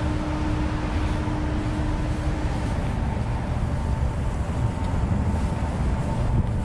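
Wind buffeting the microphone, a fluctuating low rumble, over a distant hum of city traffic. A faint steady hum in the background cuts out about two and a half seconds in.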